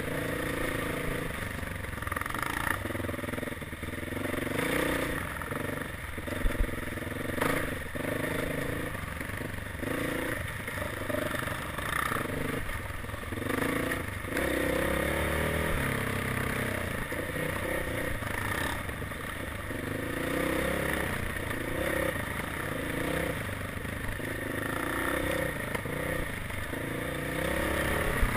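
Dirt bike engine heard from on the bike, revving up and down over and over as it rides a rough dirt trail, with clatter from the bike over the bumps. A couple of sharp knocks come about six and a half and seven and a half seconds in.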